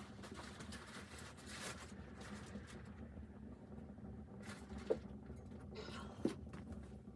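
Rustling and handling noise, with two short sharp knocks, one about five seconds in and one just over a second later.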